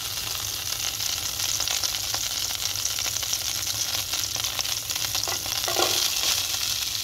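Hot oil sizzling and crackling in a non-stick frying pan, the water released by the fried liver cooking off in it. Chopped onion goes into the pan in the second half, where the sizzle swells slightly.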